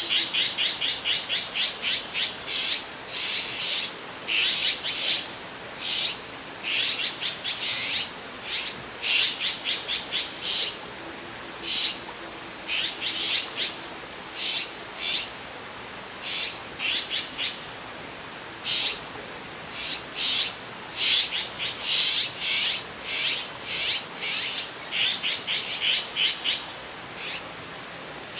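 Azure-winged magpie fledglings begging for food: quick runs of short, high calls, several a second, broken by brief pauses.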